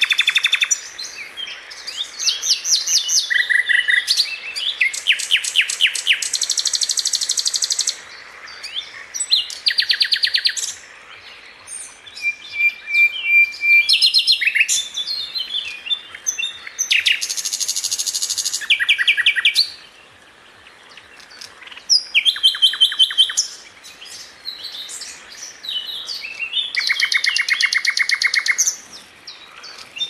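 Nightingale singing: loud phrases of rapidly repeated notes and rattling trills, each a second or two long, broken by short pauses.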